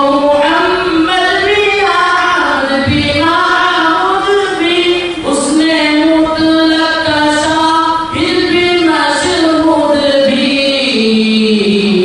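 A naat, a devotional poem in praise of the Prophet, sung unaccompanied by young male voices through microphones, with long held notes and melodic ornaments; near the end the voices settle onto one long steady note.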